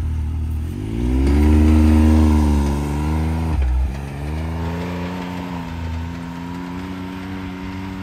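Can-Am Maverick X3 side-by-side's engine revving up as it pulls away through the snow, loudest for a couple of seconds, then dropping sharply and settling into a steadier, quieter note as it drives off.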